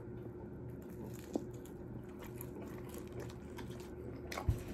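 Quiet room with a steady low hum, a few faint clicks, and one soft knock near the end.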